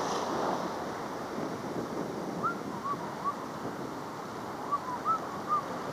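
Heavy ocean surf washing against shoreline rocks, a steady rushing noise, with some wind on the microphone. A few short chirps sound over it in two small clusters in the second half.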